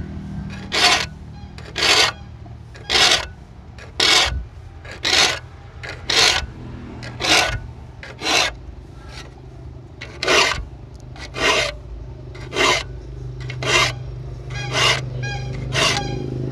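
Saw file rasping across the teeth of a handsaw, sharpening it, in steady strokes about one a second.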